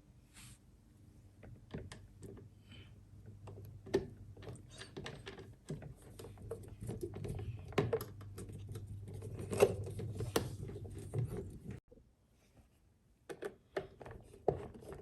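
Irregular clicks, knocks and rustles of bike parts and packaging being handled and fitted by hand during assembly, over a steady low hum that cuts off about twelve seconds in.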